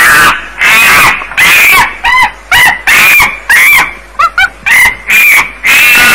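Monkey screeches in a fast string of short calls, about two a second, some sweeping up and down in pitch, with a few quick yelps about four seconds in. Amplified so far that they clip into distortion.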